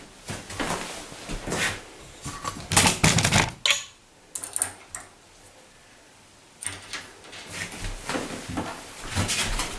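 Irregular clusters of small metallic clicks and rattles from handling screws and a tubular door latch while fitting the latch into the door edge, with short quiet gaps between.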